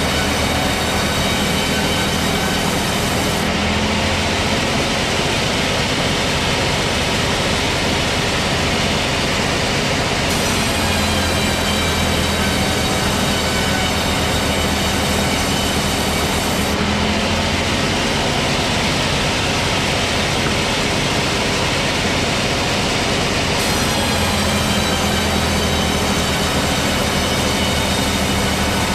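Chainsaw engine running steadily while cutting, its pitch and brightness shifting every six or seven seconds as the load on the chain changes.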